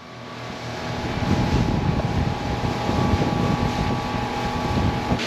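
Motorboat under way: a steady motor hum with a few held tones over a rush of wind and water noise, growing louder over the first second or two and then holding steady.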